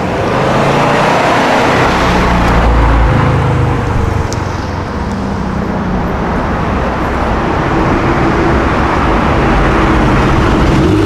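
Car engine running amid steady street traffic, with tyre and road noise and no sharp revs or bangs.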